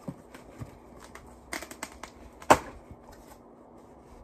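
Cardboard shipping box and its packing material being handled and pulled open: scattered crackles and clicks, a short cluster about a second and a half in and one sharp, loud snap about two and a half seconds in.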